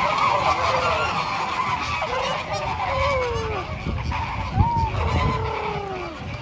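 A flock of flamingos calling: many overlapping goose-like honks that glide up and down in pitch. A brief low thump about four and a half seconds in.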